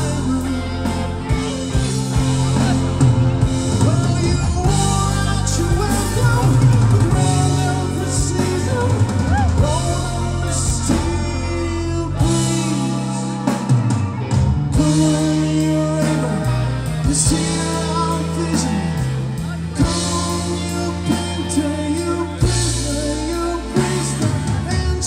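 Live rock band playing loud and amplified: electric guitars, bass, keyboards and drum kit. The lowest bass end thins out for a few seconds about halfway through, then returns.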